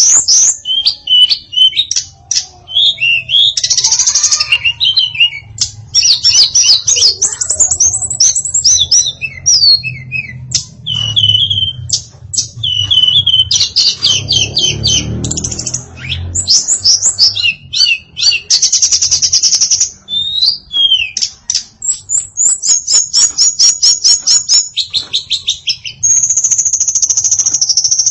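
Female tledekan singing a long, varied song of rapid high chirps, sweeping notes and fast trills, delivered in dense run-on phrases with only brief gaps.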